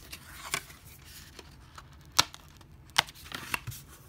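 Hands handling a metal Steelbook case and a paper sleeve: light rustling and sliding, with a few sharp clicks and taps, the two loudest about two and three seconds in.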